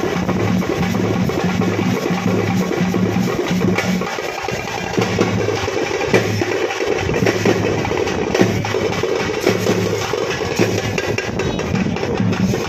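Percussion music with drums beating a fast, steady rhythm. The low beat thins out about four seconds in, then picks up again.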